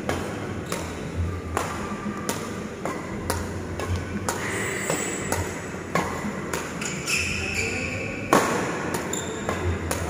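Badminton rackets striking a shuttlecock again and again in a fast drill rally, sharp irregular hits, the loudest about eight seconds in. A few short high squeaks of shoes on the court floor come between the hits.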